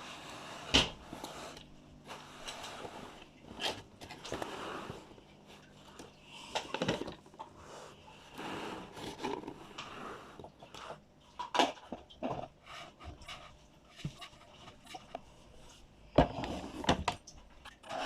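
Small toy parts and packaging being handled: scattered light knocks and clicks with rustling between them.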